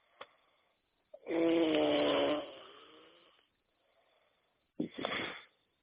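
A man snoring: one long, loud, buzzing snore about a second in that trails off slowly, then a shorter snore near the end.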